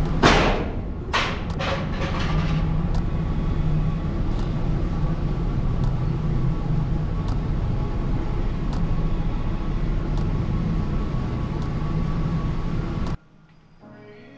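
The engine and road noise of a 2009 GMC Savana G3500 cutaway box truck, a steady low rumble as it drives through a narrow rock tunnel. A loud burst of noise comes right at the start, with a few shorter ones over the next two seconds. The rumble cuts off suddenly about 13 seconds in, leaving only a faint sound.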